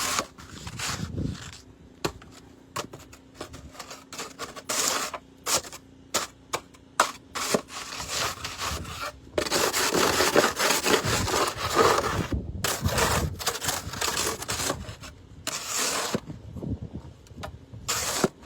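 Snow shovel scraping and scooping snow in repeated, irregular strokes, with a longer stretch of continuous scraping about halfway through.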